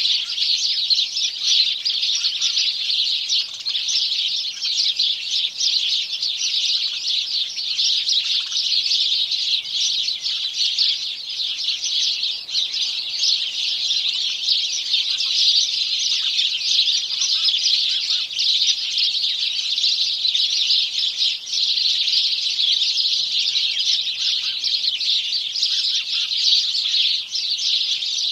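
A chorus of many house sparrows chirping at once, a dense, continuous chatter of overlapping short chirps.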